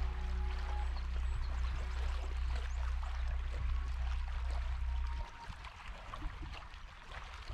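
Water trickling and lapping, a fine hiss full of small ticks, over a low steady hum that cuts off suddenly about five seconds in.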